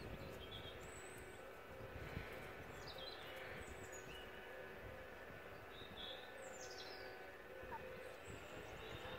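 Faint birdsong, a few scattered short chirps, over a steady low rumble of wind on the microphone.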